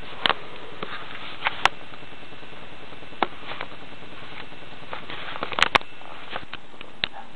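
Handling noise from a handheld camera being moved around: a steady hiss with scattered sharp clicks and knocks, and a quick cluster of them about five and a half seconds in.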